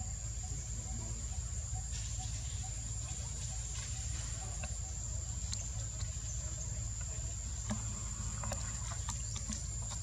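Steady high-pitched insect drone, with scattered faint clicks and a low rumble underneath.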